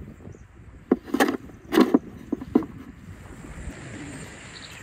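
Spade work with soil and a steel wheelbarrow: a run of short thuds and scrapes about a second in, lasting a second and a half, as shovelfuls of earth are dug and dropped into the barrow.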